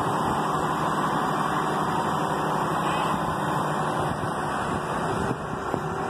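Engine of a boom lift running steadily while its boom is worked, a constant drone.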